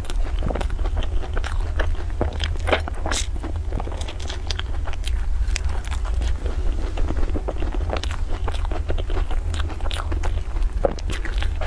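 Close-miked crunching bites and chewing of crumb-topped cream puffs, a dense run of small crackly clicks as the crisp crust breaks. A steady low hum lies underneath.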